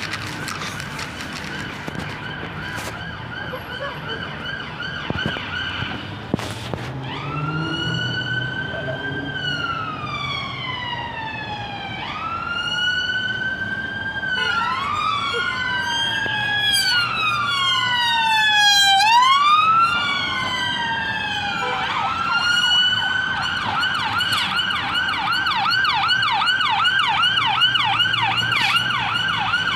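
Emergency vehicle sirens: a steady tone at first, then a slow rising-and-falling wail, with a second wail overlapping it in the middle so that two sirens sound at once. Near the end the siren switches to a fast yelp as an ambulance response car passes with blue lights.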